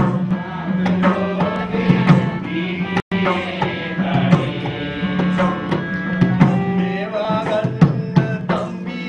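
Music with hand drums playing a fast rhythm over a steady low drone and a melody. The sound drops out for an instant about three seconds in.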